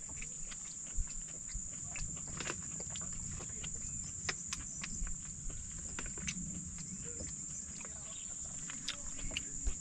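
A steady, high-pitched chorus of insects, with scattered light clicks and crinkles from a paper food wrapper being handled during eating.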